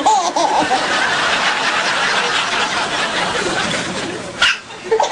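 Baby hiccuping: one sharp, sudden hiccup about four and a half seconds in, with soft laughter and a brief high squeal of voice at the start.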